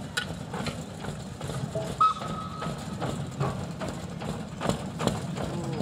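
A 1940 Ruston & Hornsby narrow-gauge locomotive's engine running at low speed as the loco creeps along the track, with irregular clicks and clanks throughout. A brief high tone about two seconds in is the loudest sound.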